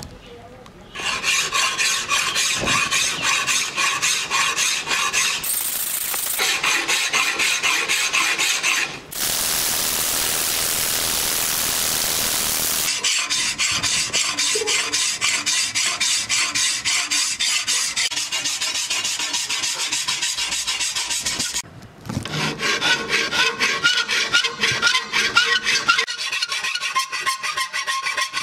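Flat hand file rasping back and forth across a steel katana blade in rapid strokes, evening out its surface. The filing comes in several stretches with brief breaks between them.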